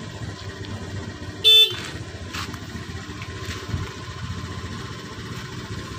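A small motorcycle engine idling, with one short, loud horn beep about a second and a half in.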